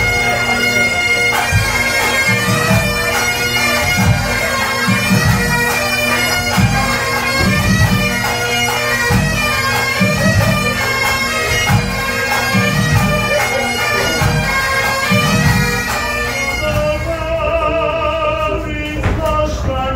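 Bagpipes playing a tune over their steady drone, with a deep drum beating underneath. The piping changes character near the end.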